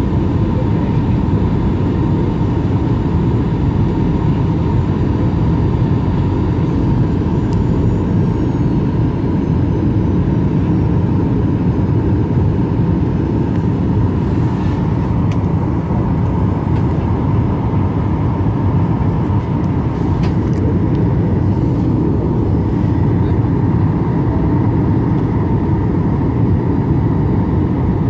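Steady cabin noise inside a Boeing 737 coming down to land: the rush of engines and airflow, with a faint steady whine above it.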